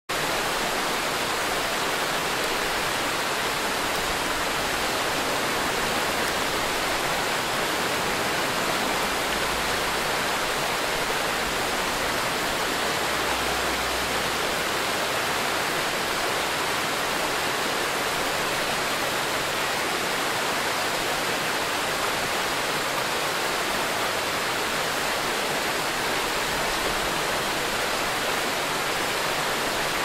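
A waterfall and the rocky stream below it rushing and splashing over boulders: a steady, even wash of water that never lets up.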